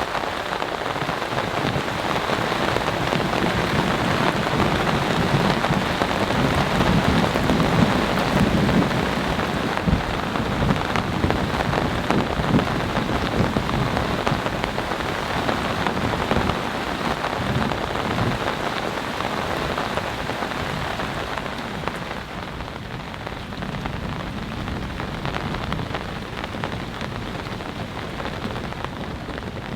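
Heavy, steady rain pouring down, easing slightly after about twenty seconds.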